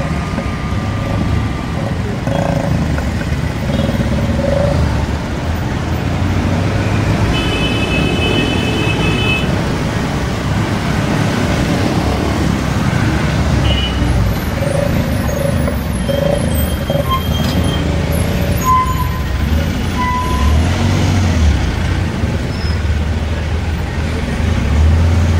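City bus riding through traffic, heard from on board: steady engine rumble and road noise, with a few short high-pitched tones, one about eight seconds in and more later.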